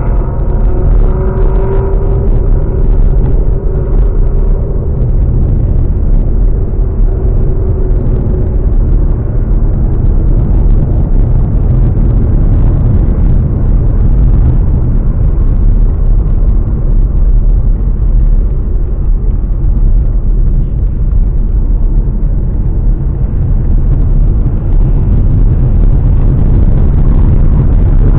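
Ford Mustang driving at cruising speed: a steady, heavy low rumble of engine and road noise. During the first several seconds an engine note rises and falls, then it settles into the constant rumble.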